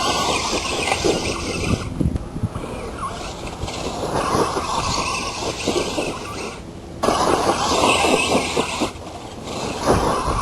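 Traxxas Stampede RC truck with a Mamba brushless system running over rough ground: motor and tyres with a rough, crackling noise that changes abruptly about 2, 7 and 9 seconds in.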